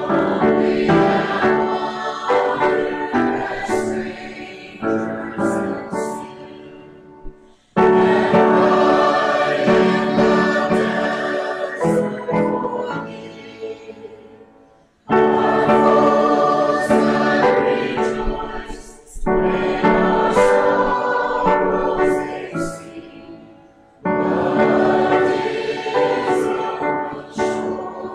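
Choir singing a hymn, in long phrases of about eight seconds that each start strongly and fade away.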